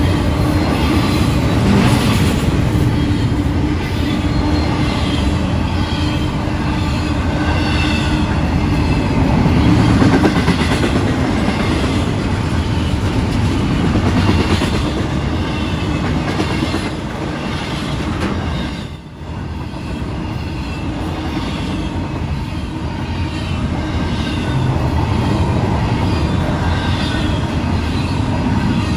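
Freight train cars rolling past at speed: a steady, loud rumble of steel wheels on rail with clicking and faint wavering wheel squeal, dipping briefly about two-thirds of the way through.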